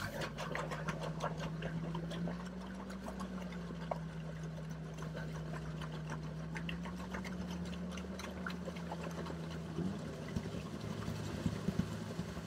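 Sherp amphibious ATV's diesel engine running at a steady speed, its pitch rising slightly about two seconds in and briefly again near ten seconds, with scattered light clicks and knocks over it.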